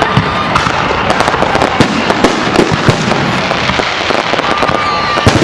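Fireworks salute going off: a rapid, unbroken string of bangs and crackling pops, with a short whistle about four seconds in.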